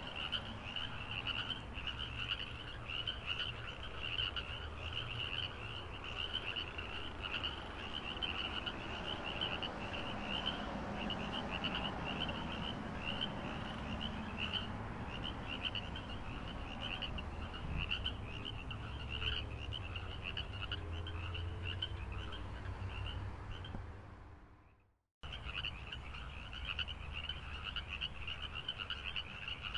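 A chorus of frogs calling in fast, dense, repeated high pulses over a low rumble. The sound fades out about four-fifths of the way through, drops to silence for a moment, then starts again abruptly.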